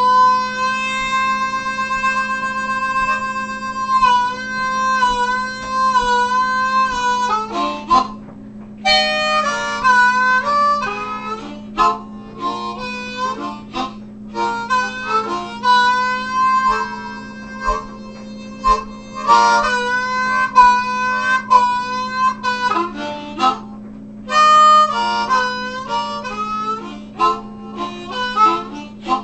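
Diatonic blues harmonica (blues harp) played with cupped hands: a long held note for about the first seven seconds, a short break, then quick, choppy blues phrases of short notes. A steady low hum sits underneath throughout.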